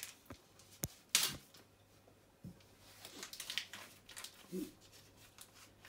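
Faint kitchen handling noises: scattered clicks and taps, a short hiss about a second in, a knock about two and a half seconds in, then light rustling of packaging, over a low steady hum.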